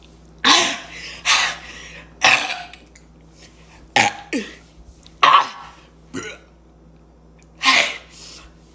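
A woman coughing and retching in about eight short, harsh bursts spaced a second or so apart. Her stomach is upset from chugging soda.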